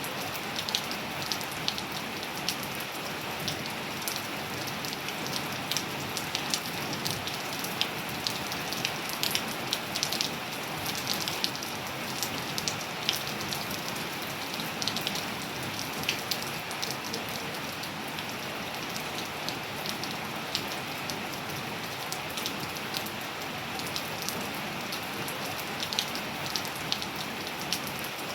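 Steady rain falling, with many individual drops ticking sharply on a hard surface over the even hiss.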